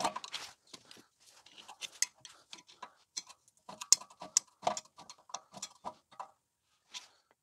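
Screwdriver turning the star-wheel adjuster of a rear drum-style park brake through the access hole in the brake disc: a run of irregular clicks and scrapes, some with a short metallic ring, as the adjuster is wound notch by notch to push the park-brake shoes out against the inside of the disc.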